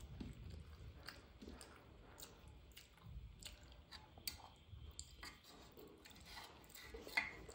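Close-up chewing of a mouthful of rice eaten by hand, with soft wet mouth clicks scattered throughout. A sharper clink about seven seconds in, from a spoon in the steel curry pan.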